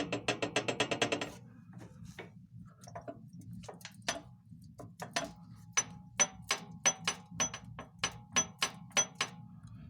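Single-cylinder R195 diesel engine of a walk-behind tractor running with a sharp metallic knock: rapid for about the first second, then slower, roughly two knocks a second. The owner takes it for a knock from the shaft at the gears, possibly wear there.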